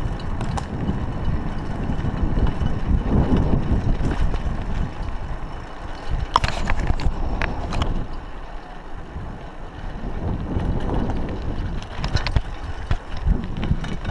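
Riding a Raleigh Ascent mountain bike over a rough, broken track: the tyres rumble and wind buffets the chest-mounted microphone. A few sharp rattles and clicks come from the bike about halfway through, and the sound eases briefly just after.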